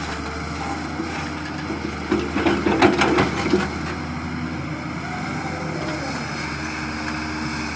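Doosan 140 wheeled excavator's diesel engine running steadily under hydraulic load as it loads a tractor trolley. A little over two seconds in, a bucketful of soil pours into the trolley with a rattling rush lasting about a second and a half.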